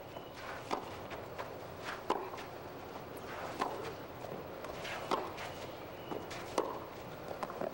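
Tennis rally: a racket strikes the ball five times, a sharp pop about every second and a half, with fainter ticks between the strikes.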